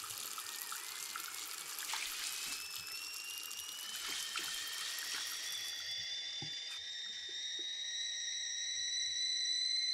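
A tap running into a bathroom sink, while a stovetop kettle's whistle comes in about two seconds in, rising in pitch, then holding steady and growing louder as the water stops around six seconds in: the kettle has come to the boil.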